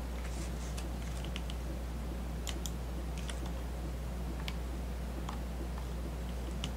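Scattered, irregular clicks of a computer mouse and keyboard over a steady low electrical hum.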